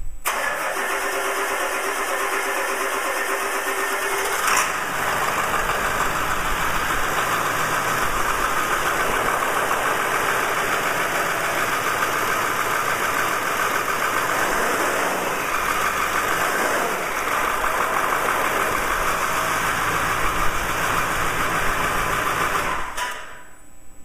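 Ford Powerstroke diesel engine starting up and running steadily, then stopping shortly before the end. This is its first start on a newly installed wiring harness, and it sounds like it's running really well.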